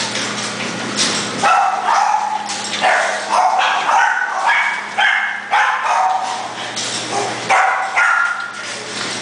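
Kennelled dogs barking and yipping over and over, a sharp bark every half second to a second. A low steady hum stops about a second and a half in.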